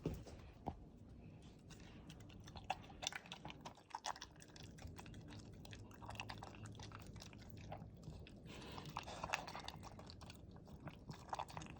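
A dog chewing and eating food: irregular, faint crunching and smacking clicks all the way through.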